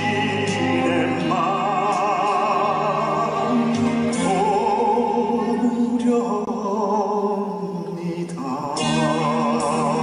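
Music with a singing voice holding long notes with a steady vibrato, in an operatic style.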